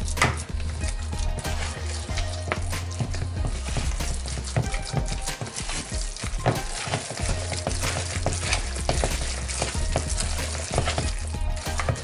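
A hand kneading and squishing raw meatball mixture in a plastic bowl: continuous wet squelching and crackling.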